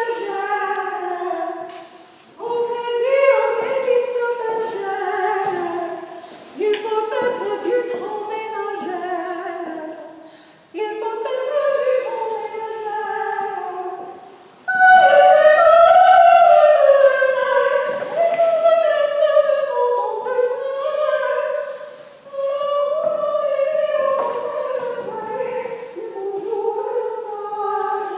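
Solo voice singing a 17th-century ballad tune in short phrases, with brief breaks between them.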